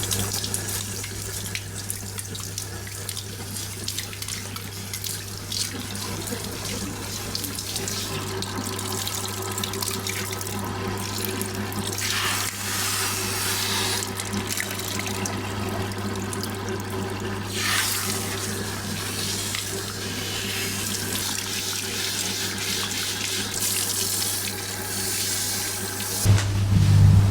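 Running water from a tap or sprayer rinsing hair, swelling and easing as the spray moves, over a steady low hum that grows louder near the end.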